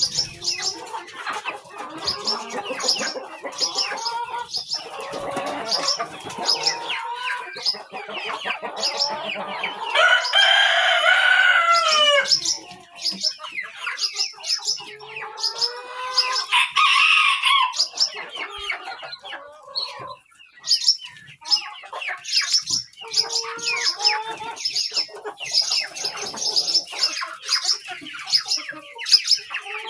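A flock of chickens clucking and calling, with many short high chirps throughout. A rooster crows about ten seconds in, and there is another long loud call around seventeen seconds.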